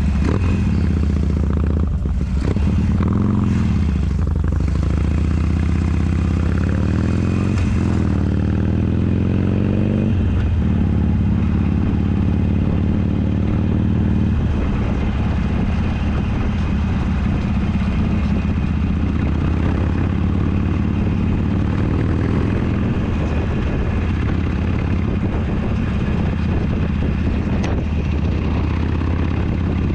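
Motorcycle engine running while riding. In the first half it rises in pitch and drops back several times as it accelerates through the gears, then settles into a steadier cruise.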